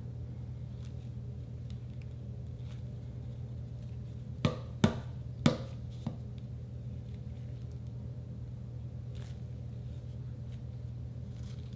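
A light-up mesh stress ball filled with gel beads being squeezed with faint squishes, then smacked down onto a hard countertop three times in quick succession about halfway through, followed by a lighter fourth knock. A steady low hum runs underneath.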